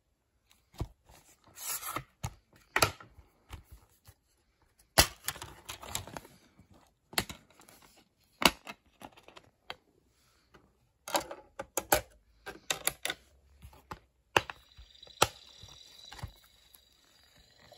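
Plastic DVD case being handled and opened: an irregular run of sharp clicks, knocks and snaps, with short bursts of rustling against the plastic.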